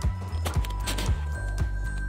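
Background music with a steady bass line and a beat about twice a second.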